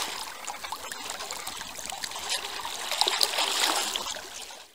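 Water lapping and trickling, with small splashes over a steady wash, fading out near the end.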